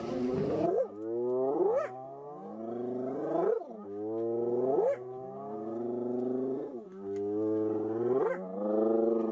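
Loud, noisy scuffle in the first second, then a wild animal giving a run of about six drawn-out, low moaning calls, each ending in a quick upward sweep.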